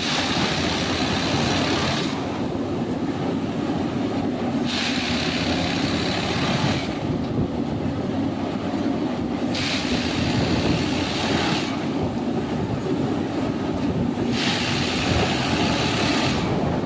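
Unimat track tamping machine working: a steady engine drone with a hissing, grinding noise that comes in for about two seconds roughly every five seconds, four times, as the machine repeats its work cycle.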